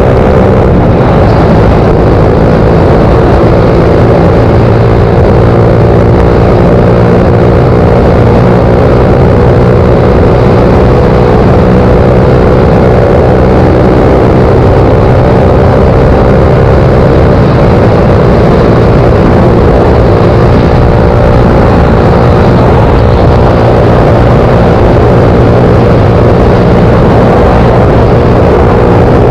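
Suzuki GSX-R125's single-cylinder four-stroke engine running steadily under way over a dense rush of wind noise; the engine note shifts about two-thirds of the way through.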